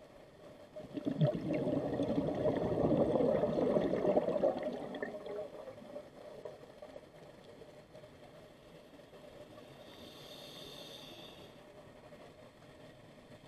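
Scuba regulator exhaust bubbles gurgling loudly for about four seconds as a diver exhales underwater, starting about a second in. A fainter steady hiss follows near the end.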